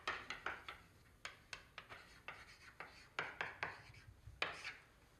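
Writing on a classroom board: a run of short, irregular scratching strokes.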